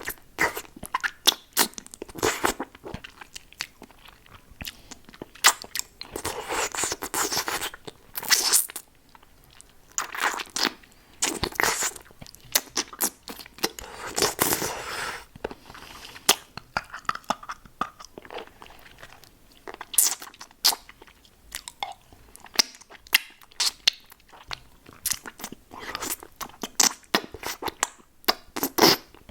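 Close-miked mouth sounds of eating a hard lollipop: quick sharp clicks and smacks, with a few longer noisy stretches of about a second each.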